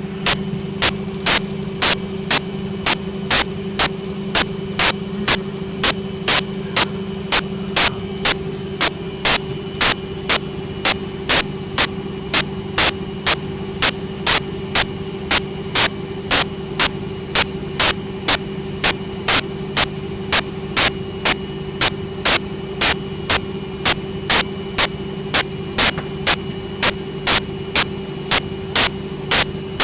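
Servis Quartz 6033 washing machine running with a steady motor hum, overlaid by a sharp, regular click a little under twice a second.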